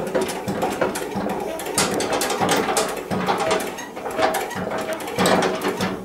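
Hydraulic scissor lift table being pumped by its foot pedal to jack up the load on it: a run of irregular mechanical clicks and clanks with some squeaking, stopping at the end.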